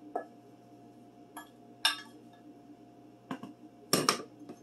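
A handful of short clinks and knocks of kitchen utensils and a measuring cup being handled on a countertop while flour is measured out, the loudest cluster near the end.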